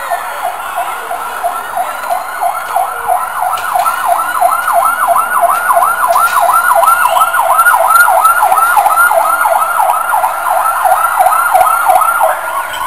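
Emergency vehicle siren on a fast yelp, about three quick rise-and-fall sweeps a second, growing louder toward the middle. Near the end it switches to a slower rising wail.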